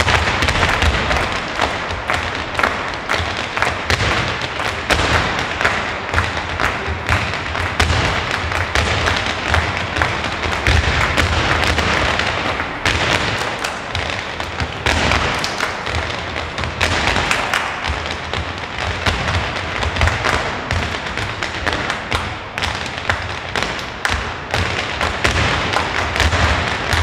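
Irish dance hard shoes striking a wooden floor in rapid, continuous footwork by a whole team dancing in unison: a dense clatter of taps and stamps.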